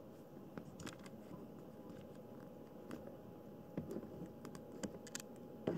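Faint, scattered small clicks and rustles of a kitten shifting about in a mesh cat bed under a fleece blanket, growing busier in the second half with the sharpest ticks near the end.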